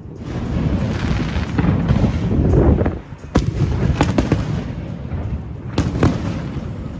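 Fireworks going off: a dense rumble of overlapping bursts builds over the first three seconds, then five sharp bangs follow, two close pairs and one between.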